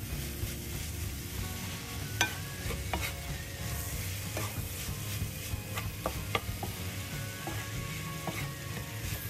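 Wooden spatula stirring sliced okra in a nonstick pan, with irregular scrapes and taps against the pan over a steady sizzle of frying; the sharpest knock comes about two seconds in.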